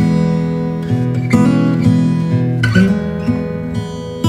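Background music: acoustic guitar playing chords, with a new chord sounding every second or so.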